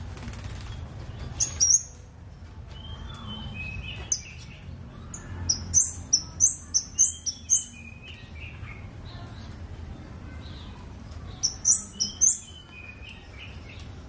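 A caged kemade (scarlet-headed flowerpecker) calling in clusters of short, very high-pitched chips: a pair near the start, a quick run of about six in the middle and another cluster near the end, with thinner, lower whistled notes between. A steady low rumble runs underneath.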